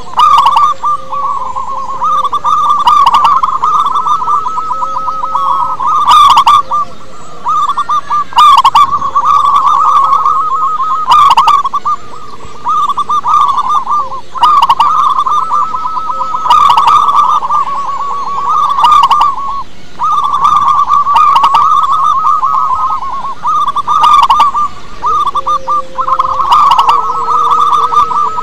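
Zebra dove (perkutut) singing its cooing song, rolling phrases around 1 kHz that follow one another with short breaks, with short sharp clicks mixed in about every two seconds.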